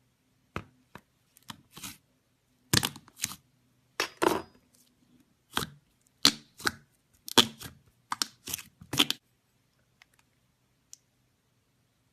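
Slime being squeezed and pulled apart by hand, giving a run of short, irregular crackles and pops over most of the stretch, then only a couple of faint clicks near the end.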